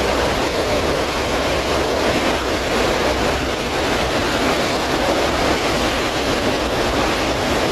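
Floodwater rushing through the area in a loud, steady roar of churning water.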